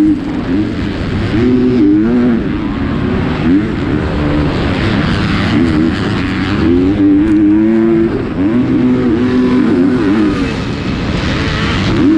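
A 250-class motocross race bike's engine, heard onboard, revving up and down again and again with throttle and gear changes, holding high for a second or so at a time.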